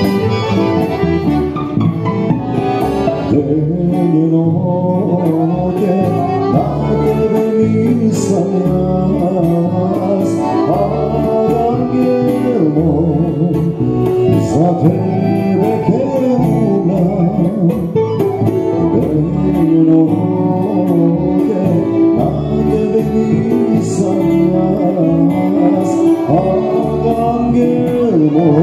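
Small acoustic folk band playing live: violin leading over upright bass and guitar, with a steady strummed beat.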